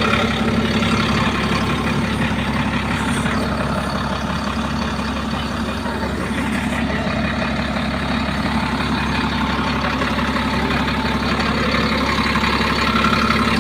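SDLG motor grader's diesel engine running steadily. Its accelerator has no return spring, so the throttle does not spring back.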